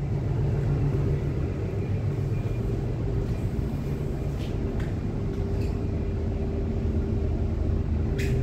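The vessel's diesel engine droning steadily with a constant low hum, with strong wind rumbling on the phone's microphone.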